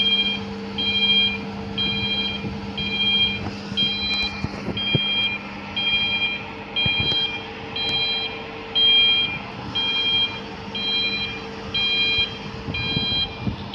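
A crane's electronic warning beeper sounds about once a second, each beep half a second long, over the steady drone of the Zoomlion truck crane's engine as it hoists a portable cabin.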